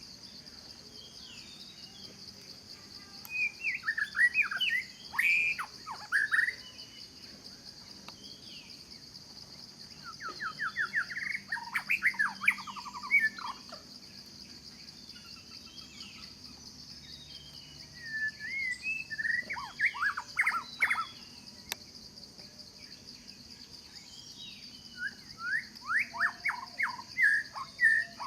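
A songbird singing four phrases of rapid, sliding notes a few seconds apart, over a steady high insect drone.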